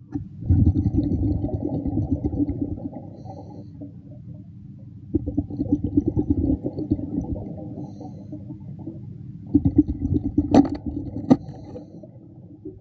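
A diver's exhaled air bubbling out underwater in three bursts a few seconds apart, with two sharp clicks near the end.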